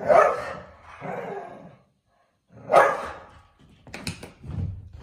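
Greyhounds play-fighting, with three loud barks: one at the start, one about a second in, and one near the three-second mark. A few sharp knocks follow toward the end.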